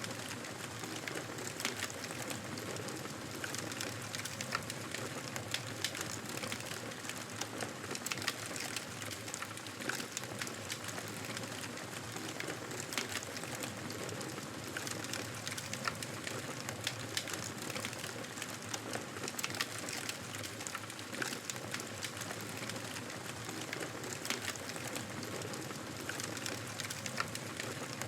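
Wood fire crackling in a fireplace: a steady soft hiss with frequent irregular sharp pops and snaps.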